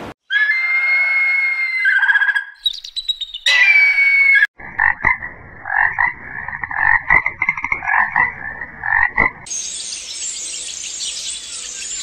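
A run of different animal calls. High whistling calls with held tones fill the first four seconds or so. Then comes about five seconds of a frog croaking in quick, repeated pulsed calls, and near the end a high, hissy chatter.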